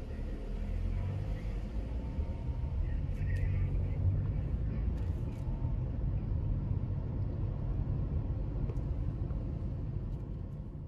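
Car cabin noise while driving: a steady low rumble of engine and tyres, with a few faint clicks.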